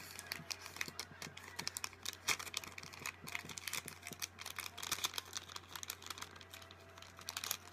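Glass beads of a beaded bookmark clicking against each other as it is handled, in rapid, irregular light clicks.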